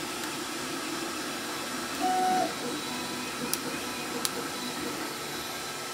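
Lock pick working the pins of a CISA rim cylinder under tension: two faint clicks a little under a second apart over a steady background hiss, with a brief hum about two seconds in.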